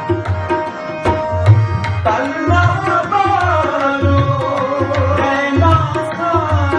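Sikh kirtan with harmonium and tabla: the tabla keeps a steady rhythm of deep strokes under the harmonium's held notes. About two seconds in, a male voice comes in with one long, ornamented sung phrase that slides up and down in pitch.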